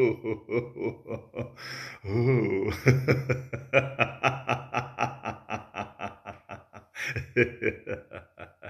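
A man laughing out loud in long, rhythmic 'ha-ha-ha' runs, about five pulses a second, breaking off briefly about two seconds in: deliberate laughter-yoga laughter.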